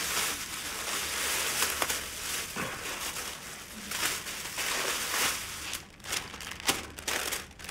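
Thin plastic carrier bag rustling and crinkling as it is handled, then stiff brown paper crackling as it is unfolded in the last couple of seconds.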